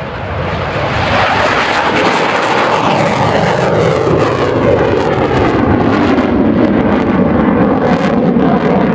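Sukhoi Su-22 jet engine at take-off power as the jet lifts off and climbs away. The loud jet noise builds over the first second and then holds steady, with a slight falling pitch early on.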